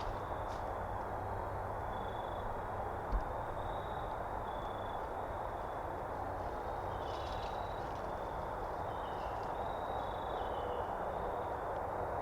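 Steady outdoor background noise with faint, short, high bird chirps scattered through it, and one soft low thump about three seconds in.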